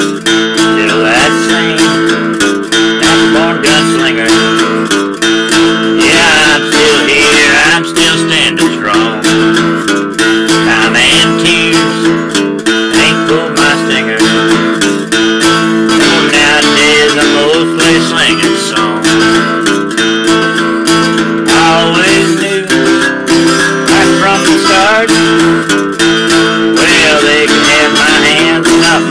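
Acoustic guitar played in an Americana ballad, strummed chords with picked notes, going steadily throughout.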